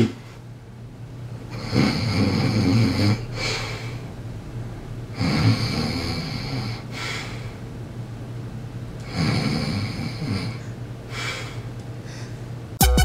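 A man snoring: three long snores about four seconds apart, each followed by a shorter breath out.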